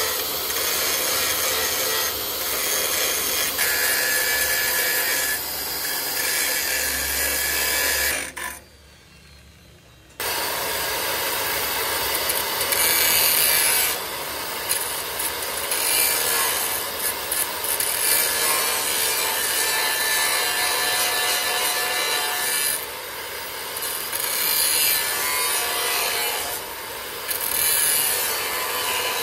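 Continuous rasping of abrasive work on metal, such as grinding or filing a truck chassis part. It stops for a moment about eight seconds in, then starts again.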